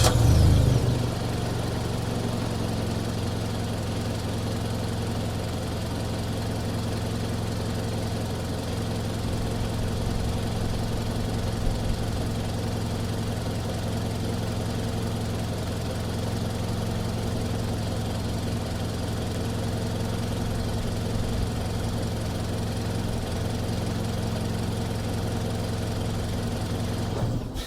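Mazda CX-5 engine heard from outside at the front, settling from the start-up flare within the first second into a steady idle. It is switched off right at the end, and the sound dies away.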